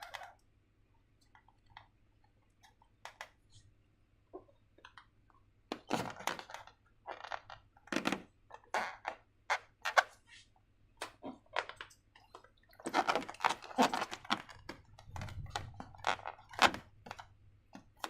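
Slime and balloon handling: irregular clicks and crackly, sticky handling noises, sparse at first and much busier from about six seconds in.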